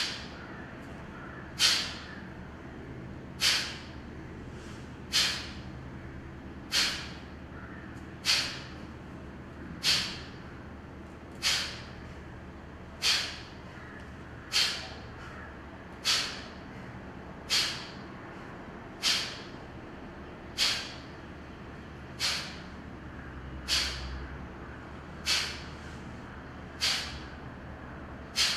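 Kapalbhati breathing: a man's forceful exhalations through both nostrils, each a short, sharp puff with a friction sound, about twenty in an even rhythm roughly one and a half seconds apart, with silent inhalations between.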